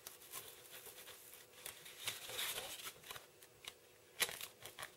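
Faint rustling and light clicks of EPP foam parts and hinges being handled as the hinges are slid into their slots, with one sharper click about four seconds in.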